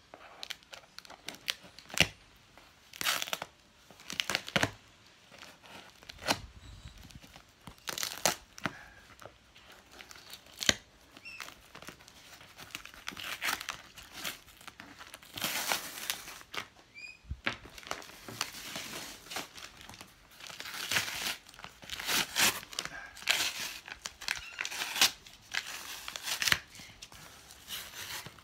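Grey duct tape being slit with a knife and ripped off a cardboard box: a string of irregular rasping tears with crinkling and scraping in between.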